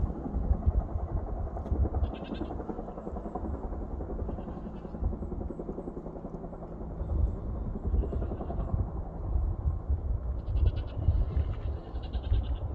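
Firefighting helicopter flying nearby, its rotor giving a loud, rapid low thudding beat that swells and eases as it shuttles water to the fire.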